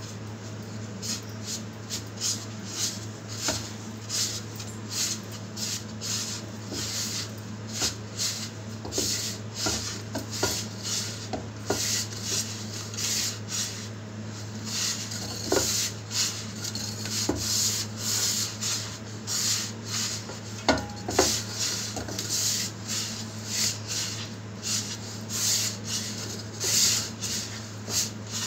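A hand rubbing wheat flour, semolina and ghee together in a steel bowl: repeated dry, scratchy rubbing strokes, one or two a second. A steady low hum runs underneath.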